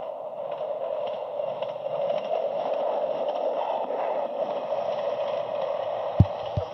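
Passenger train passing close by at a level crossing: a steady rushing rumble of wheels on rail that grows louder as the coaches go past. Two sharp thumps near the end.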